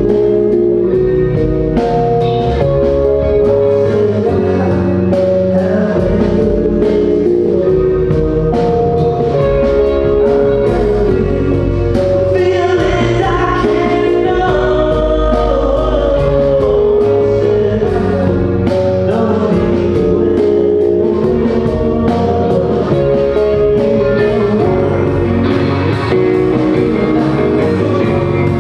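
A band playing a song live, with a singer over guitar and drums and steady drum hits throughout.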